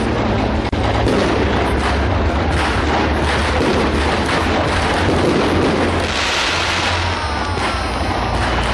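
Aerial fireworks bursting in a dense barrage, a continuous run of overlapping bangs and crackling, with a few whistling glides near the end.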